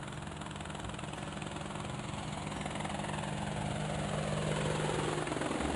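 Helicopter sound effect: engine and rotor running steadily, growing slowly louder as the helicopter approaches.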